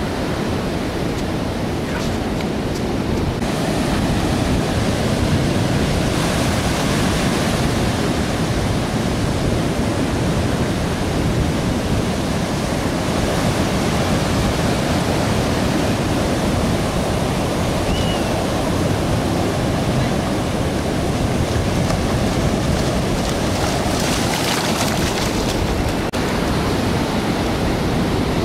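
Steady rush of choppy, wind-driven surf breaking and washing in, with wind noise on the microphone; it grows louder a few seconds in.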